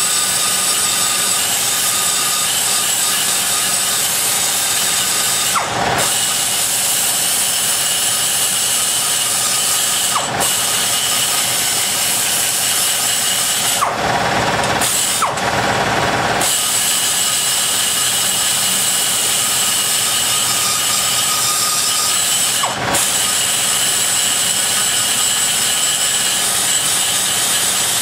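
Die grinder with a carbide burr cutting aluminum inside the exhaust port of a big-block Chevy cylinder head, roughing out raw material. It runs with a steady high whine that drops in pitch briefly four times, the longest dip near the middle.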